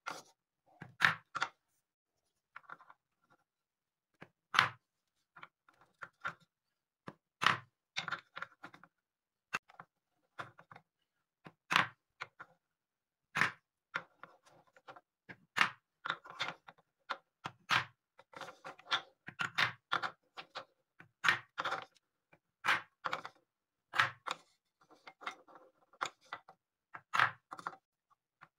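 Solid wooden balls being scooped with a wooden spoon out of wooden cups and dropped into a wooden bowl: a string of sharp, irregular wooden knocks and clacks as the spoon hits the cups and the balls land against each other in the bowl.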